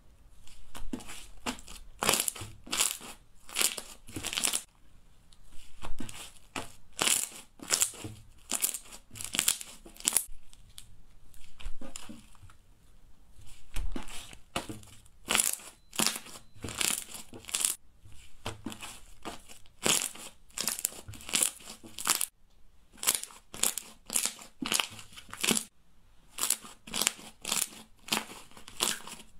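Pink slime being stretched, folded and pressed by hand, giving runs of sharp sticky pops and clicks. Near the end these come in a quicker, even beat as the slime is pressed down.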